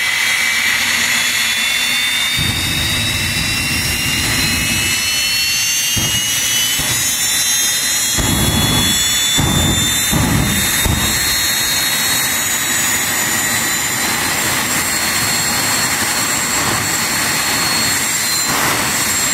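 Jet car's jet engine running loud and steady, its high whine rising slowly. Deeper surges of noise come about eight to eleven seconds in as it shoots flame from the afterburner.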